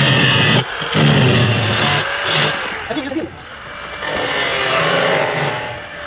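Hand-held electric drill running on the refrigerator's sheet-metal body, cutting out briefly about half a second in, then running on with its level rising and falling.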